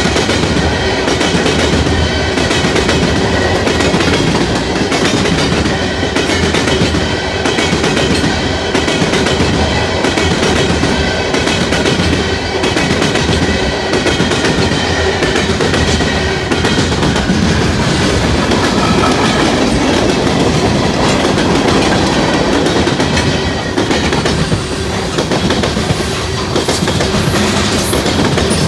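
Freight train cars rolling past, gondolas and then covered hoppers: a steady rumble and clatter of steel wheels over the rail joints.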